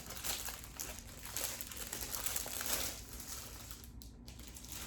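Packaging crinkling and rustling as the keyboard case is worked out of its box, quieter in the last second or so.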